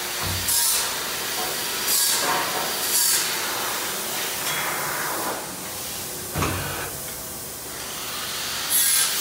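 1995 Guifil PE2560 CNC hydraulic press brake cycling: hissing and scraping as a steel strip is slid into place, a falling whine as the ram comes down, and one thump about six seconds in as the punch bends the strip into the die.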